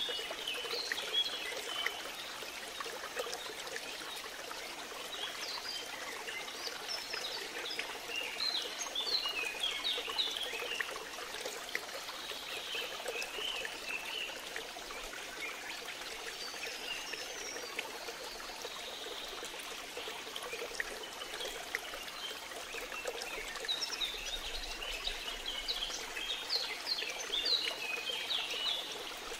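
Steady running water like a stream, with birds chirping in scattered bursts, thickest about a third of the way in and again near the end.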